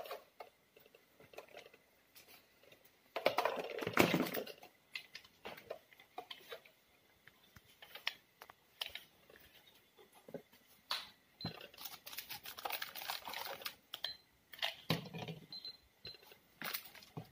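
Plastic toy cash register and grocery items being handled: irregular clicks and taps like key presses, with a louder rustle about three seconds in. Later come a few short high beeps from the toy scanner.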